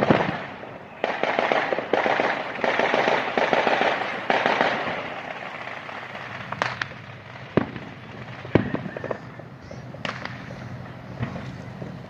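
Fireworks display: a bang, then several seconds of dense rapid crackling, then single sharp bangs about a second apart.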